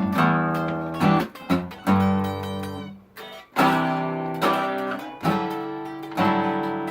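Guitar strumming chords, about one a second, each left to fade; the last chord, struck near the end, is left ringing.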